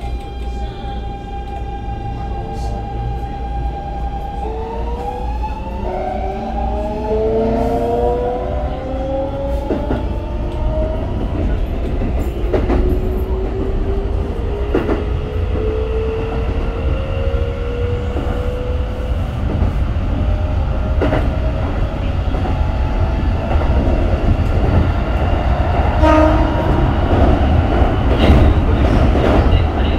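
Keikyu New 1000 series train's Siemens GTO inverter drive accelerating: the traction-motor tone holds one note, then steps and glides upward in pitch like a rising scale. The running noise grows louder as the train gains speed, with clacks from the wheels passing over rail joints.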